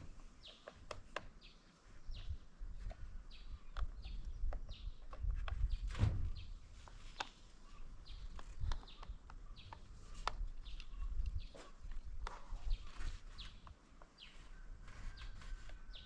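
Birds chirping over and over in short calls, with scattered sharp clicks and knocks and an uneven low rumble.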